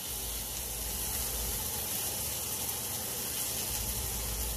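Hot oil sizzling steadily in a sauté pan as cooked rice is added, an even hiss.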